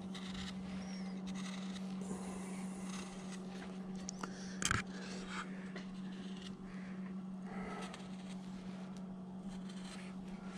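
Faint scraping of a small 3 mm No. 11 veiner gouge cutting hair lines into a wood carving, with one sharp click about halfway through, over a steady low hum.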